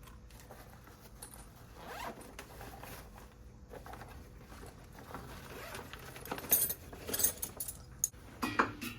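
Zipper on a fabric tool bag being pulled open, a few quick rasping pulls starting about six seconds in, after a stretch of faint handling rustle.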